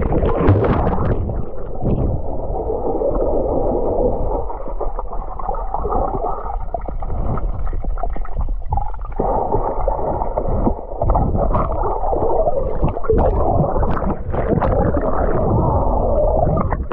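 Muffled underwater sound from a submerged camera: a steady rumble of moving water with gurgling bubbles, and a few sharp knocks in the second half.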